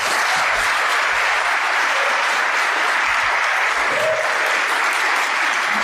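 Conference audience applauding steadily, a dense sustained clapping that fades out near the end.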